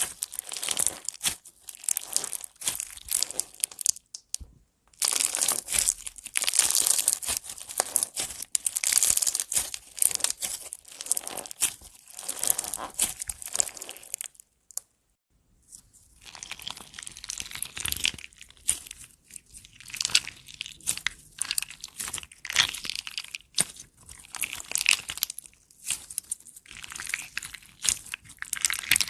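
Slime being squished and stretched by hand, making dense crackling, crinkly popping sounds that stop briefly twice.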